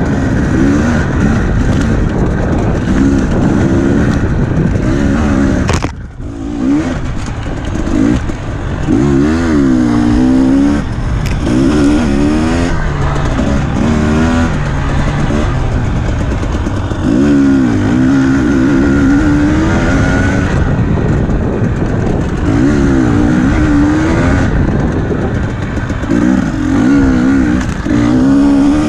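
Enduro dirt bike engine being ridden hard, revving up and down over and over as the throttle is worked on a rough trail, with a brief drop about six seconds in.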